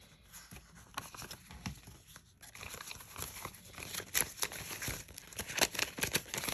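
Paper banknotes rustling and crinkling as they are handled and sorted by hand, a string of quick crackles that grows busier about halfway through.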